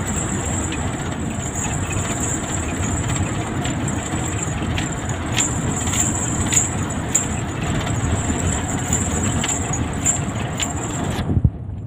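Hino truck driving through a road tunnel, heard from inside the cab: a steady low engine and tyre rumble under a constant high hiss, with a run of short sharp clicks or knocks in the middle. The sound drops away abruptly near the end.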